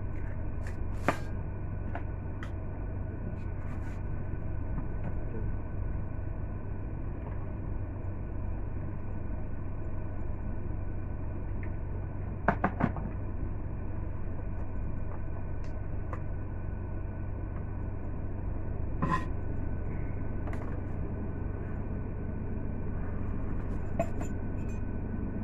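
Steady low background hum, with a few sharp clicks and knocks of kitchenware being handled: three in quick succession about halfway through, and a knock near the end as a ceramic mug is picked up.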